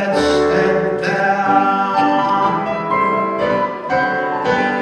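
Roland digital piano playing the closing chords of a song, a run of held chords that opens on a low bass note.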